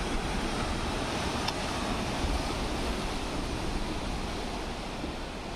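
Sea surf breaking on a rocky pebble shore, a steady even wash of waves, with a low wind rumble on the microphone.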